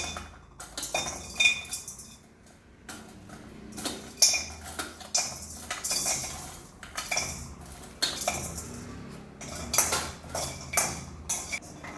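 Dry ginger pieces being added to and stirred in a metal pan on the stove: irregular clinks and scrapes of a spoon against the pan.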